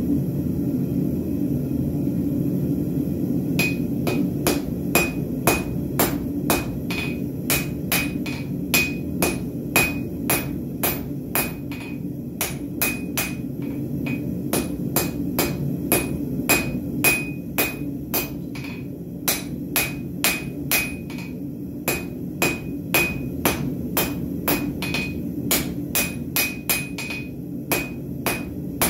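Blacksmith's hand hammer striking a workpiece on an anvil, about two blows a second, each with a bright metallic ring. The blows begin a few seconds in and come in runs with short pauses between them. A steady low rumble runs underneath.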